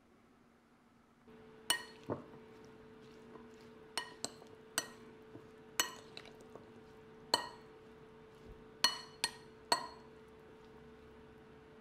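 Glass or dishware clinking in about ten sharp, ringing strikes at irregular intervals, over a faint steady hum that starts about a second in.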